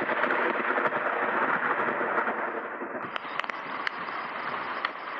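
Thunderstorm sound effect: a dense rumble of thunder and rain, with a few sharp cracks in the second half.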